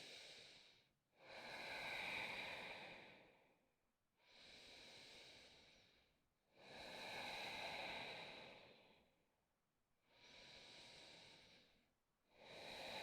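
A woman breathing slowly and deeply in a yoga pose, faint and close. There are about three full breaths: each long, louder breath is followed by a shorter, fainter one.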